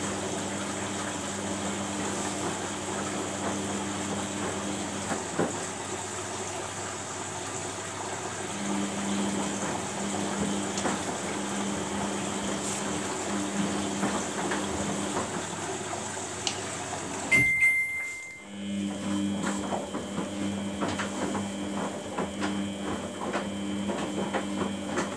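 Samsung WF80F5E0W4W front-loading washing machine in its wash phase: the drum motor hums in spells of several seconds with pauses between as it turns the drum back and forth, and water and laundry slosh inside. A sharp click with a short high tone sounds about seventeen seconds in.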